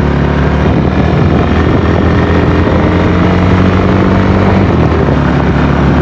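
Bajaj Pulsar NS200's single-cylinder engine running under way. The engine note rises a little midway and settles again, over a steady rush of riding noise.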